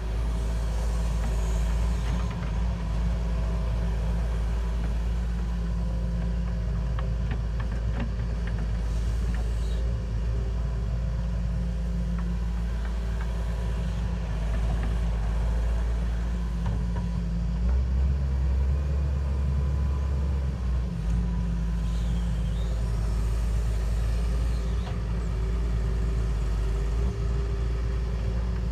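Heavy machine's engine running steadily with a deep low rumble and a few faint clicks.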